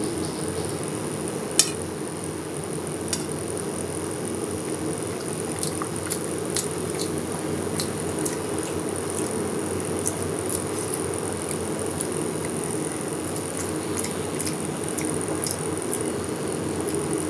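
Eating noises: scattered light clinks and ticks against a plate as a meal of rice and fish curry is eaten, one sharper clink about a second and a half in, over a steady background hum.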